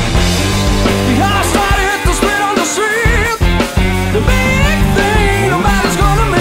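Rock music from a full band: drums, a steady bass line, and high melody lines that bend and waver.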